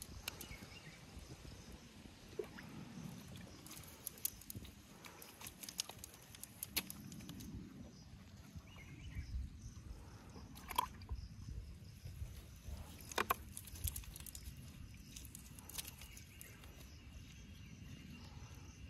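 A wet nylon cast net being handled and picked through by hand to free the catch, with scattered sharp clicks and rustles over a low rumble.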